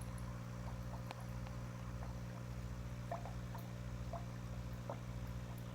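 Aquarium water trickling, with small irregular drips about once a second over a steady low hum.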